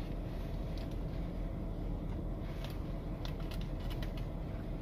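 Eating in a car: a few short crackly clicks from biting and chewing a crispy fried roll in a paper wrapper, most of them in the second half, over a steady low hum of the car interior.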